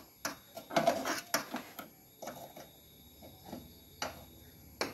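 Irregular light clicks, taps and scraping from hands picking dead insect debris out of an opened rice cooker's base housing. The sounds are busiest in the first couple of seconds, then sparser, with one sharp click near the end.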